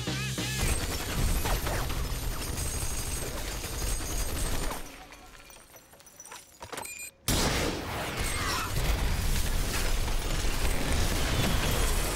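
Trailer sound mix of heavy gunfire and breaking glass over music. It drops away to a quiet lull for a couple of seconds, then cuts in suddenly and loudly just past seven seconds with more blasts and an explosion.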